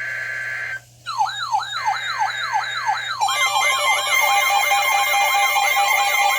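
Electronic emergency alert siren tones sounding for a severe thunderstorm warning. A steady high tone cuts off just before a second in; after a short gap a siren-like tone begins sweeping downward several times a second, and about three seconds in more sweeping and wavering tones join it in a loud, layered wail.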